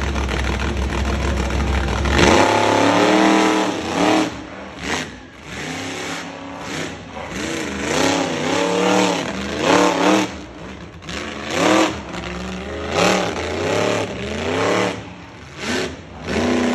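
Monster truck engine running with a low steady rumble, then from about two seconds in revving up and down again and again in short throttle bursts.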